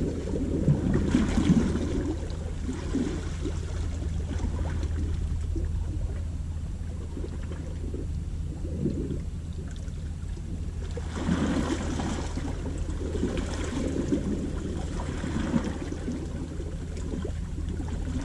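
Sea waves washing against a rocky shore in several surges, the strongest a little past the middle, over a steady low rumble of wind on the microphone.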